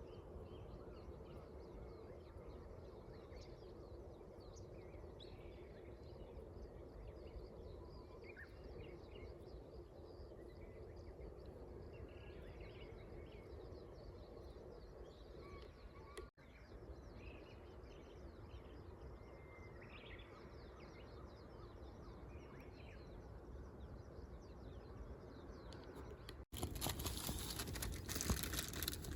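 Faint outdoor night ambience: a steady low hum with scattered short, high bird chirps. About three seconds before the end it cuts to louder rustling and crinkling.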